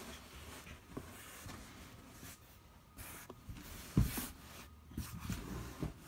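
Handling noise from moving the cardboard fan box and the camera: light rubbing and scattered knocks, with a louder thump about four seconds in.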